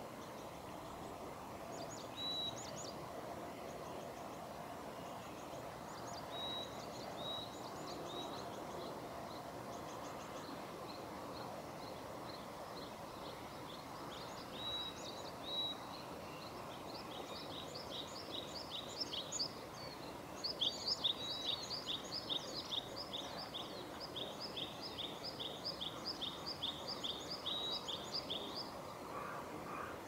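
Varied tit singing: scattered short high notes at first, then, from a little past halfway, a fast run of the same high note repeated over and over. Steady background noise lies underneath.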